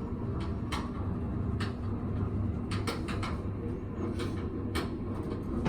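Quiet handling sounds on a chiropractic table: a few faint clicks and rustles over a steady low room hum, with no joint crack.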